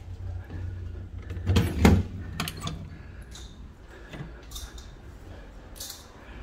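A classroom door being opened: two loud knocks from the handle and door as it is pushed open, then a scatter of lighter clicks and creaks, over a steady low rumble.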